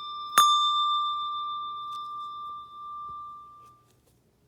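A Malmark handbell struck once about half a second in, ringing a clear high note with bright overtones that dies away over about three seconds. The ring of an earlier strike of the same bell is still fading when it is struck.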